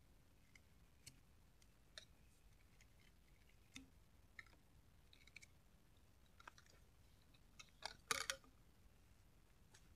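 Hatchet working a wooden stick: a few sparse, faint taps, then a quick cluster of sharper strikes about eight seconds in.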